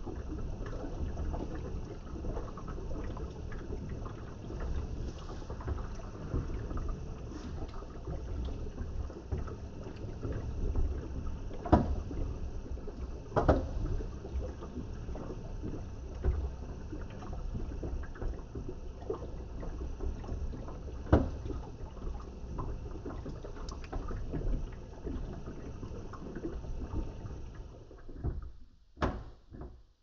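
Water and laundry sloshing in the turning drum of a Theo Klein toy washing machine, a replica of the AEG Lavamat, with a few sharp knocks along the way. The sound dies away near the end as the drum stops.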